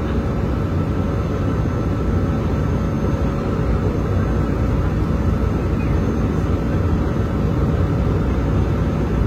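Steady cabin noise of an Airbus A320 in flight: an even rush of airflow and engine drone heard from inside the cabin, with a few faint steady tones in it.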